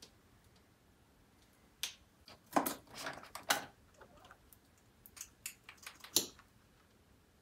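Small handling noises: a scatter of sharp clicks and light knocks, busiest around the middle, with a last sharp click near the end.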